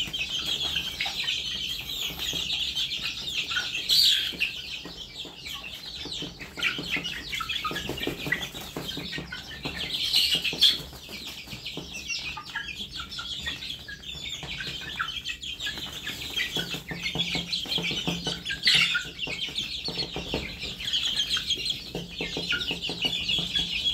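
A crowded flock of young Burmese (ayam birma) chickens, about two months old, cheeping continuously with shrill, overlapping peeps, a few louder calls standing out now and then.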